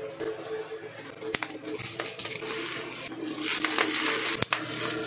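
Plastic bubble wrap crinkling and rustling as hands pull a package open. There is a sharp click about a second in and two more close together near the end.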